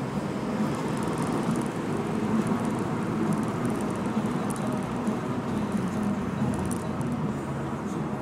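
Renault Megane RS225's 2.0-litre turbo four-cylinder pulling steadily uphill, over a constant wash of road and tyre noise, with faint scattered light ticks.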